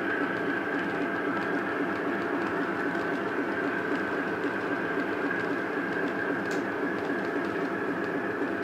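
Model railway diesel locomotive hauling a train of wagons along the layout's track: a steady motor whine over the rumble of small wheels on rail.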